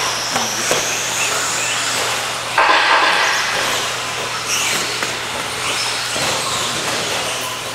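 Electric 1/10-scale RC stadium trucks with 13.5-turn brushless motors racing: high motor whine rising and falling as they accelerate, with tyre noise and a few sharp knocks from landings or hits.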